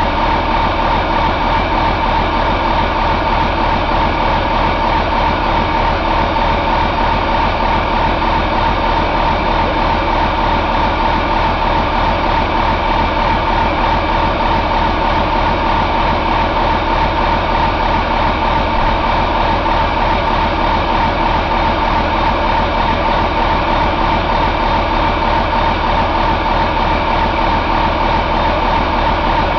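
2008 Cummins ISM inline-six diesel engine running on a test stand at a steady speed, with a fast, even low throb and a steady high whine over it.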